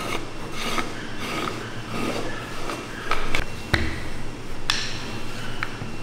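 Flat wooden paddles rubbing and pressing along strips of candy dough on a floured wooden table: a run of short scraping strokes, broken by a few sharp wooden knocks.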